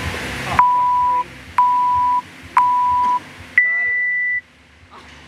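Electronic countdown timer beeping: three short beeps one second apart, then one longer, higher beep that signals the start of the timed workout.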